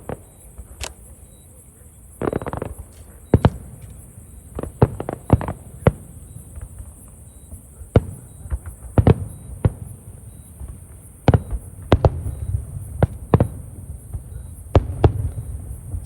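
Aerial fireworks shells bursting: a string of sharp booms at irregular intervals, some in quick pairs, each trailing off in a low rumble. A steady high-pitched hiss runs underneath.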